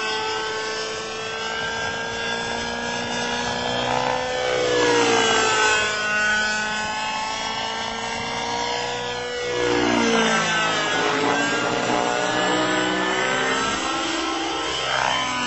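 Robbe Millenium 2 radio-controlled helicopter flying aerobatics: the engine and rotor make a steady whine. Its pitch swoops down and back up about three times as the helicopter manoeuvres.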